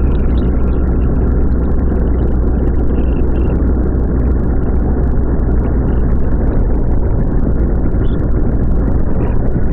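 Motorcycle riding along at speed: a steady engine rumble and wind rush on the rider's microphone, loud enough to bury the music.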